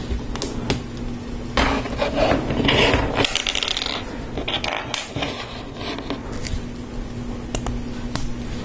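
Small plastic LEGO Technic parts handled: a run of sharp clicks as friction pins are pressed into a beam, and short rattling clatters as loose parts are picked through.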